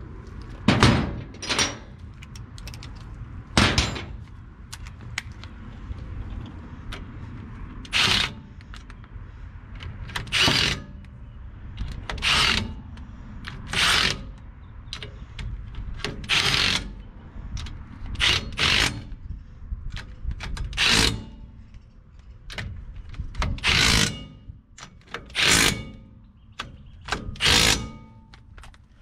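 Cordless impact wrench run in about fourteen short, irregularly spaced bursts, driving the backing-plate nuts down onto the rear axle studs one after another around the plate.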